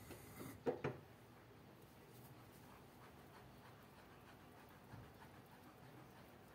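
Faint soft scraping and squishing of a silicone whisk stirring thick chocolate cream in an enamel pot. Two short, louder knocks come just under a second in.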